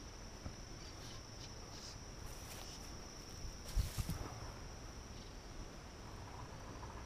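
Insects trilling steadily in one high, unbroken tone, with a dull knock or two about four seconds in.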